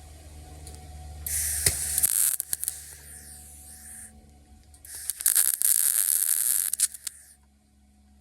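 Harbor Freight Titanium MIG welder laying two short tack welds: two loud crackling, sizzling arc bursts of about two to three seconds each, the second starting about five seconds in. A low hum sounds under the first two seconds.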